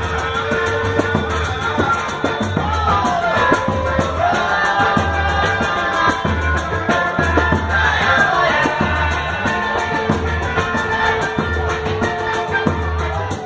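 Live samba music: a voice singing over busy hand percussion, with a low beat about once a second.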